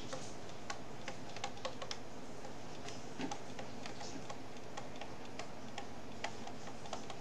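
Light, irregular clicks of a stylus tapping and stroking on a tablet surface while handwriting, a few per second, over a faint steady hiss.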